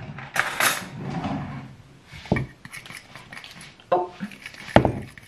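A metal fork clinking and knocking against a mixing bowl as crêpe batter starts to be stirred: a few sharp clinks, the loudest near the end, after a short rustle of handling near the start.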